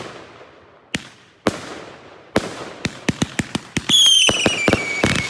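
Porker 45-shot consumer firework cake firing: sharp reports at first about half a second to a second apart, then a rapid volley of cracks. Near the end a whistle falls in pitch over the volley.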